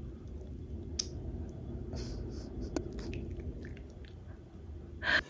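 Quiet room tone: a low steady hum with a few faint clicks scattered through, and a short breathy sound near the end.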